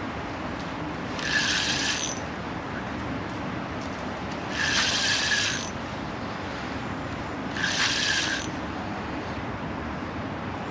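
Fixed-spool fishing reel being wound in three short bursts of about a second each, a whirring, ratcheting turn of the handle as line is reeled in on a feeder rod.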